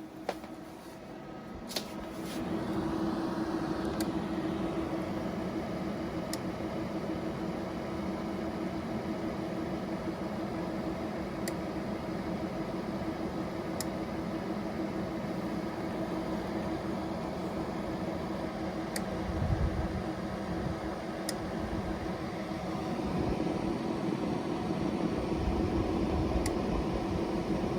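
EcoFlow DeltaPRO portable power station with its cooling fan running as a steady hum that gets louder about two seconds in and again near the end, while sharp single clicks sound irregularly every two to five seconds. The clicking is the known, unfixed fault of firmware 1.0.0.74, which cycles faster than earlier firmware.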